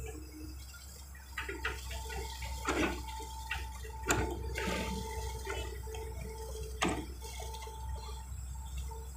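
Wet concrete sloshing and splashing as it is tipped from a Hitachi excavator's bucket into rebar formwork, with the excavator's diesel engine running steadily underneath and several sharp knocks along the way.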